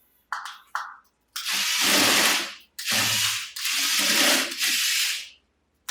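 Remote-controlled toy JCB digger running: after two short chirps, three long stretches of rattling, hissy mechanical noise from its plastic gearing.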